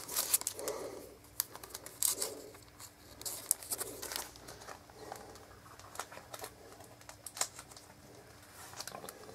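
Light handling noise: scattered clicks and rustles from a tablet in its plastic sleeve being handled, with a few faint, soft low hums in between.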